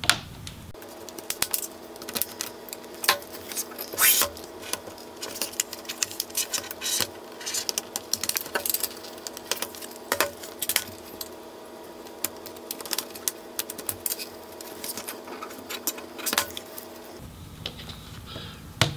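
Irregular plastic clicks and snaps from a laptop display bezel being pried and worked loose from its back cover. A steady low hum sits under them from about a second in until shortly before the end.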